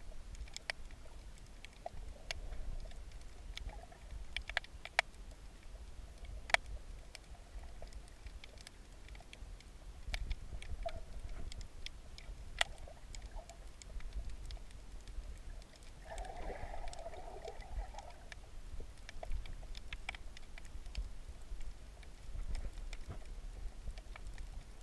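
Underwater ambience heard through a submerged camera: scattered sharp clicks and crackles over a steady low rumble, with a louder patch lasting about two seconds roughly two-thirds of the way through.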